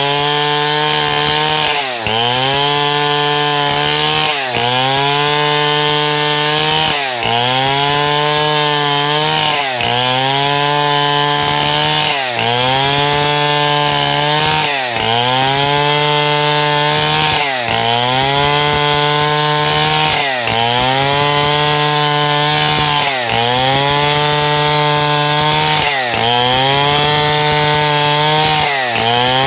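Stihl MS070 two-stroke chainsaw running at full throttle and cutting wood. Its engine note drops sharply under load and climbs back about every two and a half seconds.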